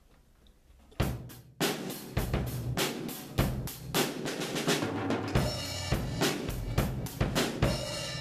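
A drum kit played with sticks: a quick, busy run of drum hits starts about a second in, and from about halfway cymbal crashes join in and keep ringing.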